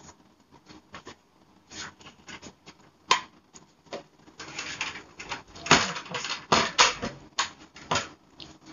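Handling noises: scattered clicks, taps and rustles as small items are put back into a cabinet and the recording phone is moved. The clicks get busier and louder about halfway through.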